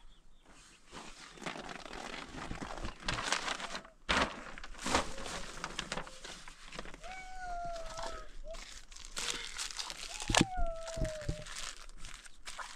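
Crinkling, crunching rustle of something being handled, with a couple of sharp knocks and two short falling calls.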